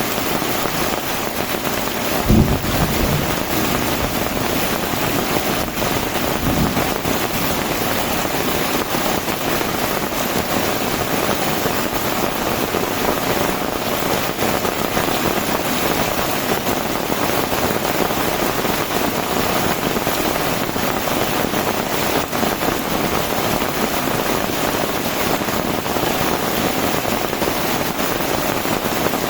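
Heavy tropical rain pouring steadily. There are two brief low thumps, a louder one about two seconds in and a fainter one about seven seconds in.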